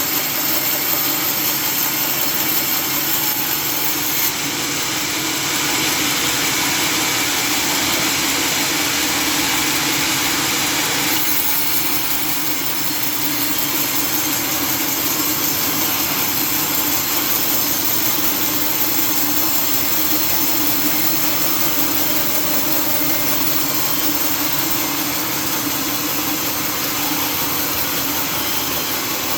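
Sawmill machinery running steadily with a loud, even noise; its sound shifts twice, about four and about eleven seconds in.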